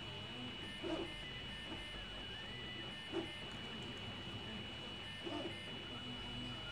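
Stepper motors of a Prusa i3 MK2S 3D printer working as a pen plotter, whining in short steady tones that change pitch with each move of the pen carriage, over a constant high whine. Three brief louder sounds come about one, three and five seconds in.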